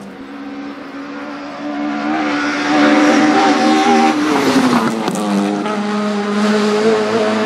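Rally car engine at high revs as the car comes up the road and passes close by, the revs climbing, dropping briefly about halfway through, then held high again. A short sharp crack sounds about five seconds in.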